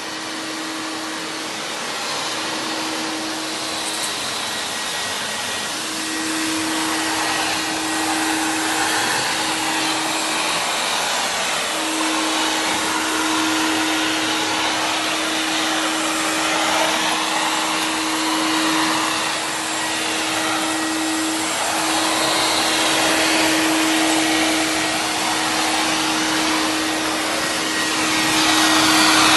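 Nilfisk CFM S2B industrial wet/dry vacuum running, its floor nozzle drawn across a concrete floor with a steady rushing suction. A low steady hum under it cuts in and out several times.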